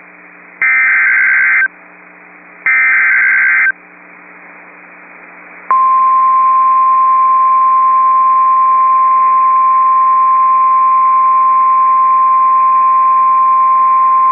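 Emergency Alert System SAME header: two one-second bursts of buzzing digital data tones about a second apart, encoding the warning for alert receivers. Almost six seconds in, the steady single-pitch NOAA Weather Radio 1050 Hz warning alarm tone begins and holds. Faint radio hiss and hum run underneath.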